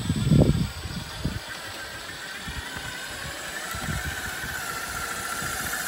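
Scale RC rock crawler (RC4WD Trail Finder 2) driving over rock: its electric motor and geartrain whine, wavering in pitch with the throttle and growing stronger toward the end. Low rumbling thumps in the first second and a half are the loudest sounds.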